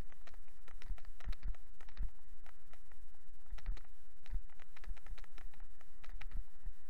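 Camera on a moving bicycle rattling and knocking in its mount as the bike rolls over the road: irregular clicks and knocks, some with a low thump, over a steady low rumble.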